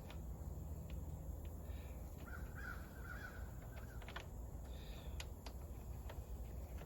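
Several harsh bird calls, like caws, around two to three seconds in and again near five seconds, over a low steady background with a few faint clicks.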